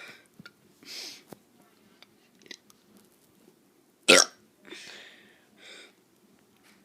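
A child forcing out a short, sharp burp about four seconds in, the loudest sound here, followed by breathy exhales. A breath and small mouth clicks come before it.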